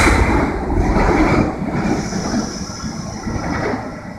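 R32 subway train pulling away into the tunnel, its rumble and wheel noise fading steadily as it recedes.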